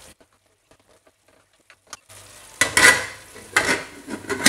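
After about two seconds of near silence, chicken and potatoes sizzle in an aluminium pot. Several sharp clatters over the sizzle come from the spatula against the pot and the aluminium lid being set on.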